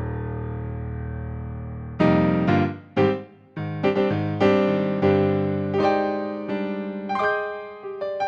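Yamaha P-125A digital piano playing chords: a low held chord fades for about two seconds, then a run of struck chords follows about every half second.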